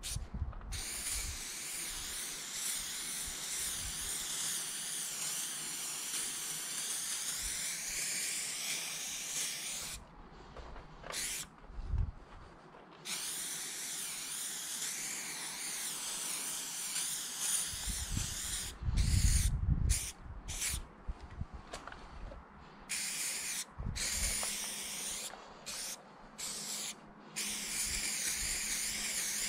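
Aerosol spray can of chrome paint hissing as it fills in the letters of a graffiti piece: long, steady sprays at first, then a run of short spurts with brief pauses near the end. A low rumble, the loudest sound, breaks in for about two seconds around two-thirds of the way through.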